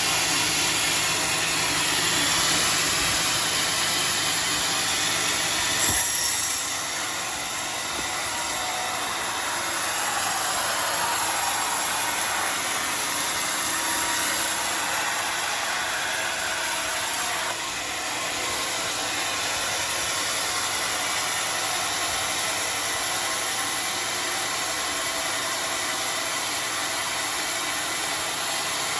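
Homemade sawmill running and sawing a log of joar wood (Siamese cassia): a steady mechanical hum under a loud hiss, with a single knock about six seconds in and slight changes in level after it and again later.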